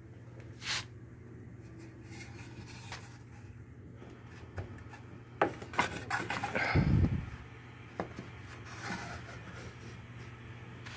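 Wooden bandsaw box and its wooden drawer handled on a workbench: light rubbing and clicks of wood on wood. About six to seven seconds in there is a cluster of knocks and a heavy thump as the box is tipped over onto the bench.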